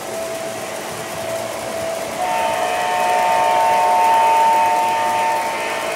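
O gauge model diesel locomotive's sound-system horn blowing one long chord, starting about two seconds in and lasting about three seconds, over the steady running noise of the toy trains on the track.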